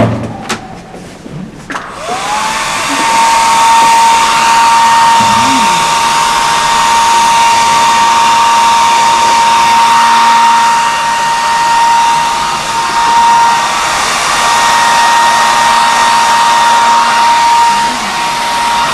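Handheld hair dryer switched on about two seconds in, after a few clicks and knocks. Its motor spins up quickly to a steady whine over a loud rush of air.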